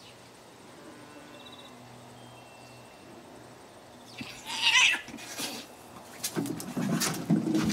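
Two domestic cats fighting: a loud hissing screech about four seconds in as one lunges at the other, then a run of scuffling and thumping as they break apart and one runs off.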